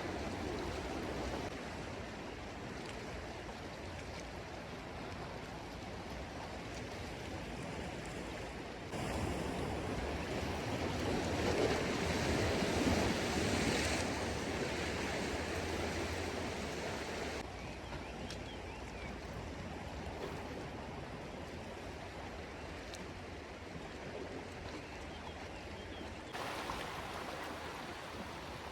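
Steady wash of sea waves on the shore, with no distinct single events; the level and tone shift abruptly several times, louder and brighter for a stretch in the middle.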